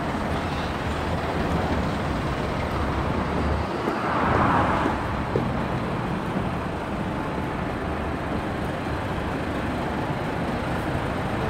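Steady street traffic noise from passing trucks and cars, swelling briefly about four seconds in.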